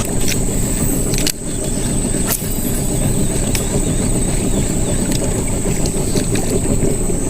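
A small fishing boat's motor running steadily, a low even rumble with a thin high whine over it.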